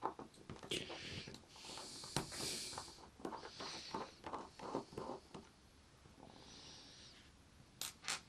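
Faint handling noise as a slipjoint folding knife is taken apart by hand. A run of light clicks and taps fills the first five seconds or so, with a few short hissing scrapes, and two sharp clicks come near the end.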